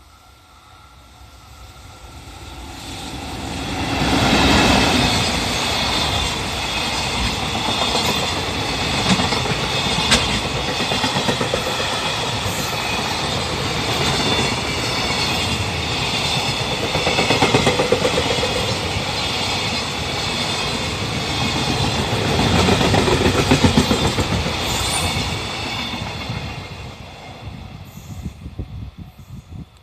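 A freight train hauled by an EF65 electric locomotive passes close by. The rumble and clickety-clack of the wagon wheels over the rail joints swell over the first few seconds, run on loud for about twenty seconds, and fade away near the end.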